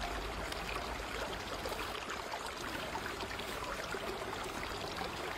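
Running water: a steady, even rush and trickle, like a stream or river.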